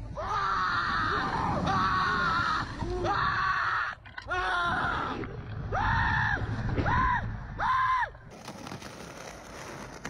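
A rider on a slingshot thrill ride screaming over and over: four long screams, then three shorter ones, over a low rumble of wind on the microphone.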